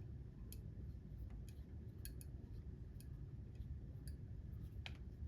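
Hand cutting broach turning in a clock bushing hole to ream it out: faint, irregular light clicks and scrapes of the metal cutter, spaced about a half second to a second apart.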